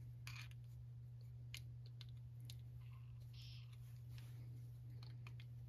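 Scattered small clicks and scrapes of a flathead screwdriver prying at the plastic limiter-cap piece on a Zama carburetor, over a steady low hum.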